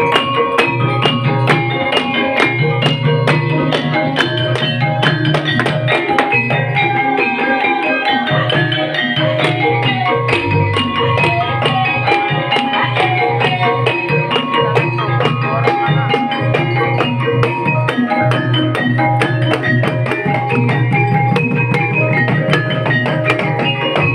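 Banyumasan gamelan music for an ebeg trance dance: hand drums beat a steady, fast rhythm over struck keyed instruments and a low pulsing bass, with no break.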